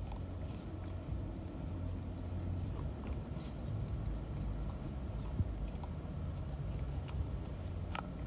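A boxer puppy licking and lapping inside a small paper cup, with scattered small wet clicks and taps of the cup, over a steady low hum.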